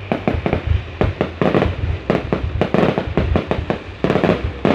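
Fireworks going off in a rapid, irregular series of sharp bangs and crackles, several a second.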